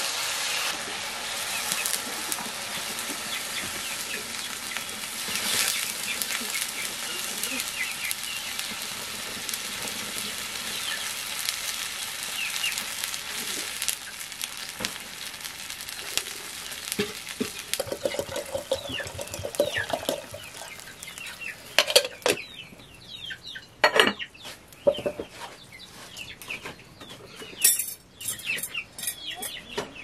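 Chicken curry sizzling and frying in a wok over a wood fire, a metal ladle stirring and scraping in the pan. Midway the frying dies down and sharp ladle knocks against the pan stand out, while chickens cluck in the background.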